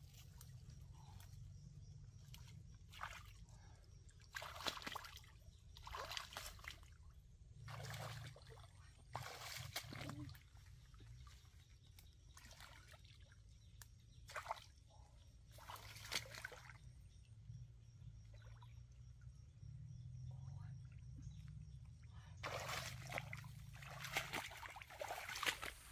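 Water sloshing and splashing in short, irregular bursts over a low steady hum.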